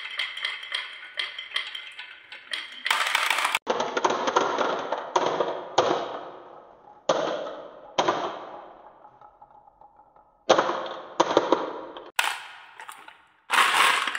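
Balls rolling and clattering down a handmade wooden wave track, a dense rattle of knocks against the wood. It comes in a series of runs, each starting suddenly and dying away.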